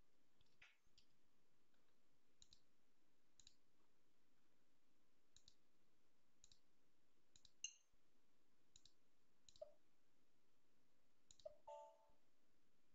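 Near silence with faint computer mouse clicks, about a dozen scattered single and double clicks over a low hiss.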